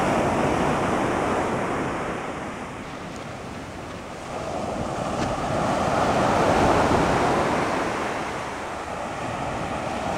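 Ocean surf breaking and washing up a sandy beach. The rush eases off a couple of seconds in and swells again with the next wave from about four seconds in.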